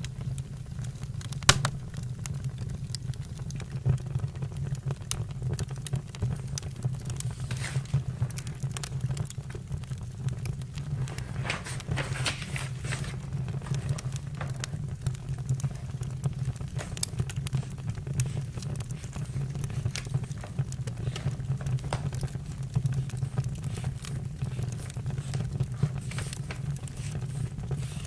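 Campfire burning: a steady low rumble under many small crackles and pops. There is a sharper snap about a second and a half in and a brief hissing flare near the middle.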